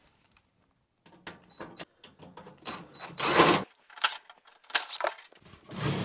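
Clicks and metallic rattles of screws being taken out of an electric fireplace insert's sheet-metal cabinet, with a louder rasping burst about three seconds in.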